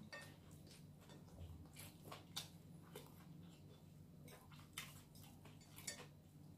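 Faint, scattered crackles and clicks of eating by hand: crispy fried chicken being pulled apart and chewed, over a faint low hum.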